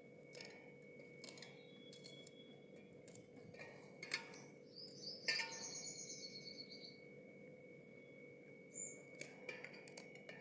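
Faint, scattered knife taps on a cutting board as vegetables are cut, with a bird chirping a short run of high notes about halfway through.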